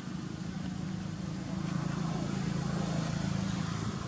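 A low, steady engine hum that swells in the middle and eases near the end.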